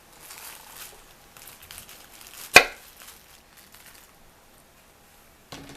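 A single sharp, loud knock of something hard set down or struck in a kitchen, about two and a half seconds in, amid faint handling and rustling sounds; a few soft knocks follow near the end.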